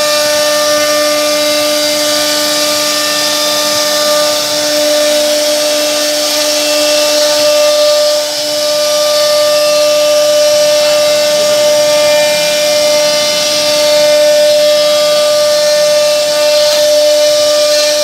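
CNC router spindle running at a steady high whine while its bit cuts grooves into a wooden panel, with the rasp of the wood being cut.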